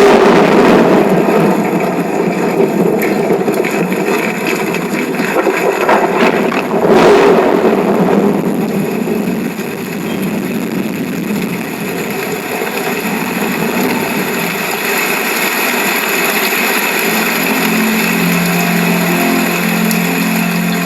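John Barrel Swing 2 2.1-channel home theatre speakers playing a loud sound-effects demo track, a dense noisy rush that swells about a second in and again about seven seconds in. A steady tune starts to come in near the end.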